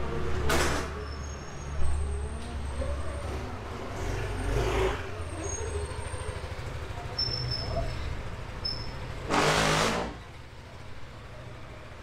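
Yamaha NMAX 155 scooter's single-cylinder four-stroke engine running at low revs as the scooter is ridden slowly. A loud rush of noise comes about nine seconds in.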